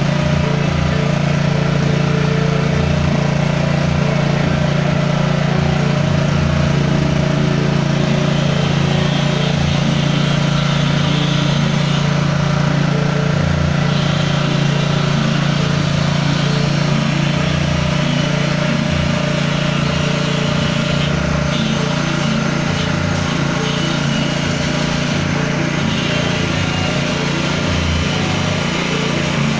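Motor-driven peanut and getuk grinding machine running steadily, a constant low hum with a noisy whir over it.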